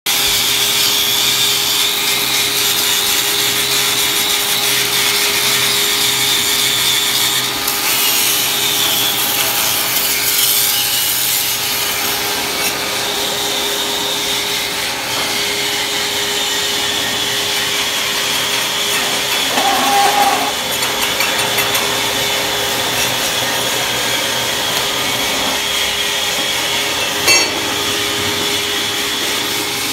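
Handheld angle grinder grinding steel: a steady high whine with a gritty rasping edge that runs on without a break. A single short knock near the end.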